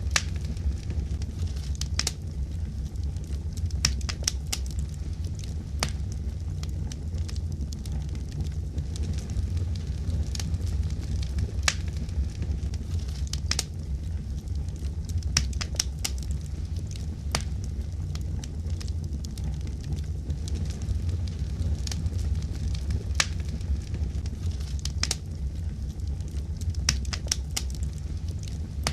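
Fireplace fire crackling, with irregular sharp pops over a steady low rumble of the flames.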